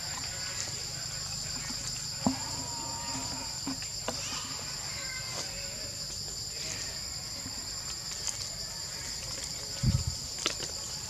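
Steady, high-pitched chorus of insects. A few sharp clicks come through it, and a short low thump, the loudest sound, comes near the end.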